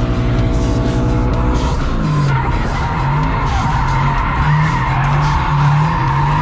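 Toyota GT86's flat-four engine at high revs, heard from inside the cabin while the car drifts, with tyres squealing. About two seconds in, the engine note drops and starts wavering on and off while a steady tyre squeal takes over.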